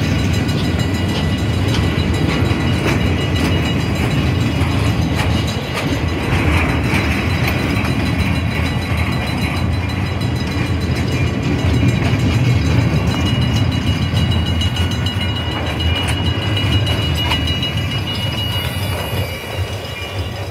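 A freight train of empty bulkhead and centerbeam flatcars rolling past at close range. The wheels rumble steadily on the rails, with scattered clanks and rattles and a thin, steady high whine over the top.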